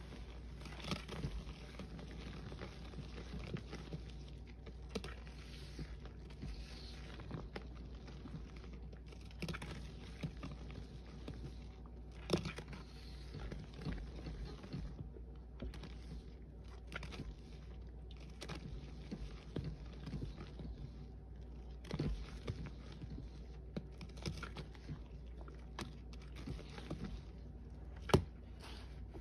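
A gloved hand kneading and squeezing a sponge loaded with thick lime Ajax powder-cleanser paste, with an irregular run of small clicks and crackles, and one sharper click near the end.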